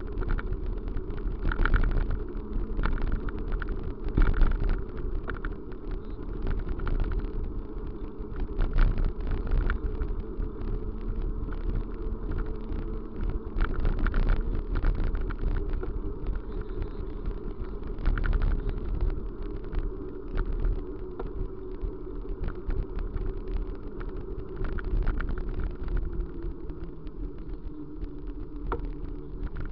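A vehicle in motion: a steady low rumble with many small knocks and rattles.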